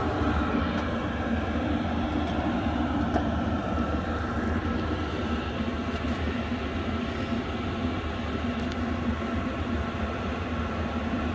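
Chinese 5 kW 12-volt diesel air heater, warmed up and running steadily: an even rushing hum from its combustion blower and burner over a low drone.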